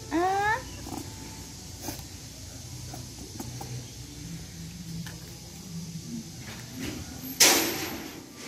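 A baby macaque squealing in a quick run of rising squeaks, then faint small ticks of handling. About seven seconds in comes a short, loud burst of noise, the loudest sound.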